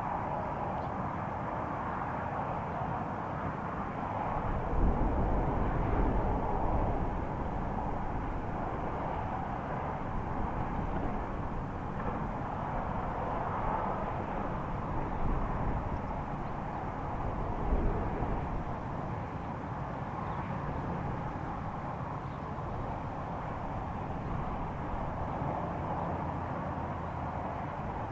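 Steady low rumbling hum heard outdoors, the kind put forward as a mysterious sound from the sky. A deeper rumble swells about five seconds in, and there is a brief louder moment later on.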